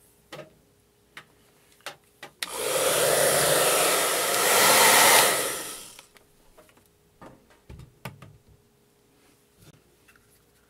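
A handheld hot-air blower runs for about three seconds, starting about two and a half seconds in and cutting off near the six-second mark: a steady rushing blast. It is heating a rubberized grip wrap's adhesive before it is pressed into the pistol's polymer. A few light handling clicks come before and after it.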